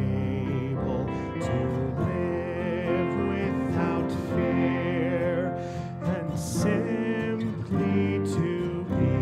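Postlude music: a voice singing with vibrato over instrumental accompaniment.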